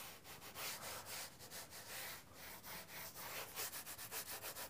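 Graphite pencil scratching quickly back and forth across sketching paper in light, loose strokes, several a second, faint.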